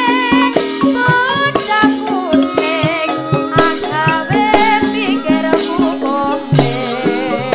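A young female Javanese singer (sinden) sings a melismatic, wavering vocal line into a microphone over live traditional band accompaniment, with fast hand-drum strokes and rattling percussion.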